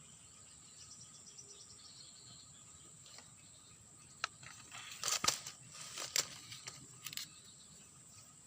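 Steady high-pitched drone of insects such as crickets. About four seconds in, a cluster of sharp clicks and rustling, loudest between five and six seconds in, lasts for a few seconds.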